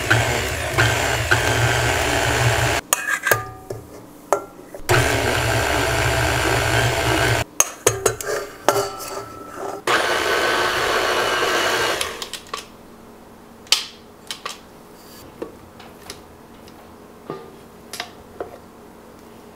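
Stand mixer motor running as a flat beater mixes flour into cookie dough. It is switched off and on in short runs: about three seconds, a pause, a few seconds more, then a last run that stops about twelve seconds in. Light clicks and knocks follow as the beater is handled.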